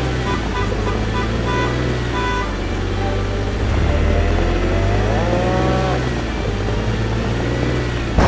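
Cartoon vehicle engine running steadily, with a rising rev about five seconds in. A sudden crash starts right at the end.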